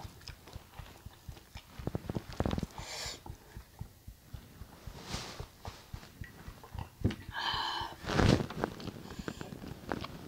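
Eating at a table: scattered clicks and taps of utensils on dishes, with chewing and a few short rustling or breathy noises, the loudest a little after eight seconds in.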